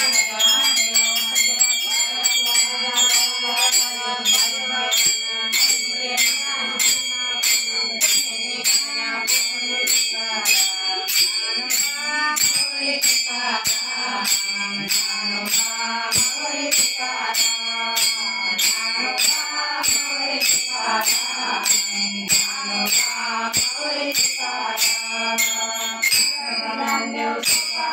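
Devotional bhajan singing by a woman's voice, accompanied by small hand cymbals struck in a steady beat, about two to three ringing clashes a second.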